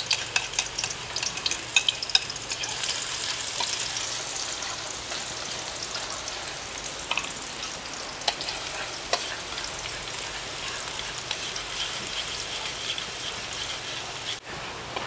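Onion frying in hot oil in a pan: a steady sizzle with sharp crackling pops, busiest in the first few seconds, as the onion turns fragrant.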